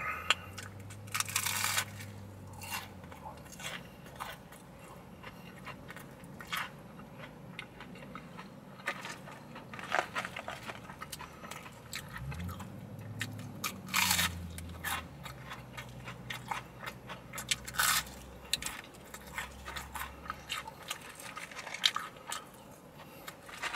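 Close-up biting and chewing of crispy battered fried fish and chips. Crunches come every few seconds, and the loudest fall about a second and a half in, about fourteen seconds in and about eighteen seconds in.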